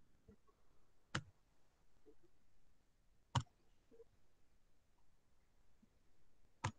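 Three sharp computer mouse clicks, about a second in, near the middle and near the end, the middle one loudest, over faint room tone: a mouse clicking through on-screen menus.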